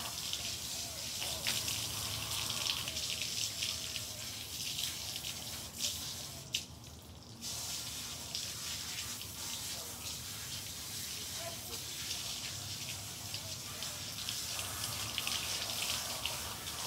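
Water spraying from a garden-hose nozzle and splashing onto a wet dog and concrete, a steady hiss that stops for about a second near the middle before the spray resumes.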